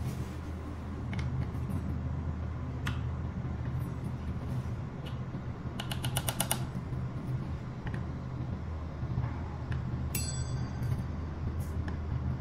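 A hex key working on an electric scooter's front disc brake caliper: a quick run of small metallic clicks about halfway through and a short metallic ring about two seconds later. A steady low hum runs underneath.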